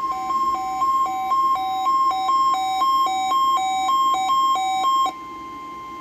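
NOAA Weather Radio's steady 1050 Hz warning alarm tone, with a weather radio receiver's alert beeping over it in a fast alternating two-pitch pattern, about two beeps a second, that stops about a second before the end while the steady tone carries on. The beeping is the receiver being tone-activated by the weekly test.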